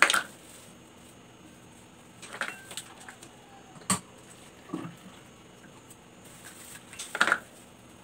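Plastic measuring cups and bowls handled on a table: a few scattered knocks and clicks, a sharp click about four seconds in and a louder clatter near the end.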